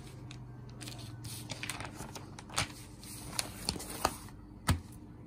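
Sheets of a large newsprint newspaper rustling and crinkling as they are handled and folded, with scattered sharp crackles and a short thump near the end.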